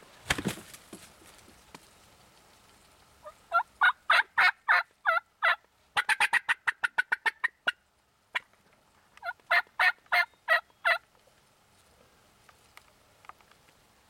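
Wild turkey tom gobbling: three rattling strings of rapid notes a couple of seconds apart, the first about a quarter of the way in. A brief rushing thump comes right at the start.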